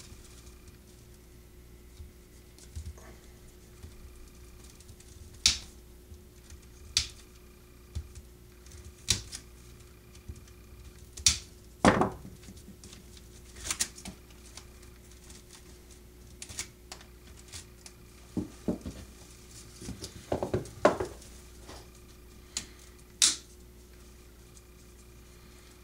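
Wire cutters snipping the thin wire bands off bunches of dry twig broom bristles: a dozen or so scattered sharp clicks at irregular intervals, with rustling of the stiff twigs as they are handled.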